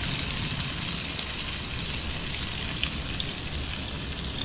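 Egg-soaked slices of bread frying in butter in a pan for French toast, sizzling steadily.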